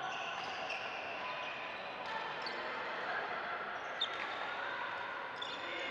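Badminton being played on several courts at once: shoes squeaking on the court floor and rackets hitting shuttlecocks, with one sharp hit about four seconds in, over faint background voices.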